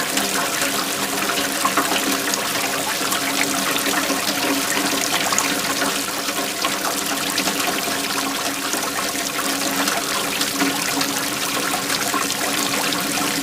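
Waterfall: a steady, unbroken rush of flowing and splashing water.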